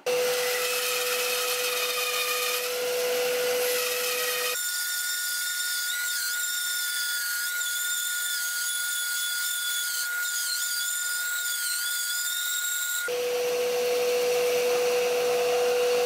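Benchtop bandsaw running and ripping a block of hardwood along a marked line, a steady motor hum with the hiss of the blade in the wood. For about eight seconds in the middle the whole sound abruptly jumps to a much higher pitch, then drops back.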